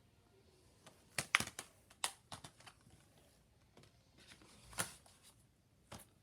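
Blu-ray packaging and paper inserts being handled: a run of sharp clicks and rustles about a second in, more just after two seconds, and single clicks near five and six seconds.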